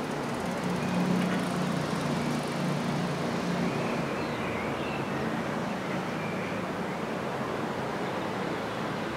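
Steady road-traffic noise with a low engine hum that is strongest in the first few seconds and then fades.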